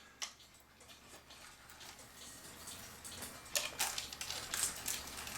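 Faint, scattered light clicks and rattles of a cuckoo clock's metal chain being handled, busier near the end.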